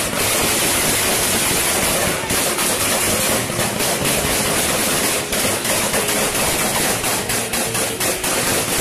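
Gunfire, a string of sharp cracks at uneven intervals, from security forces firing on protesters, in a loud, rough field recording with a dense noise hiss throughout.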